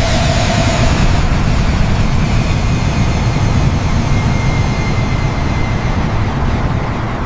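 Twin-engine jet airliner's engines running at high power on the takeoff roll: a loud, steady rumble and rush, with a faint high whine coming in about two seconds in.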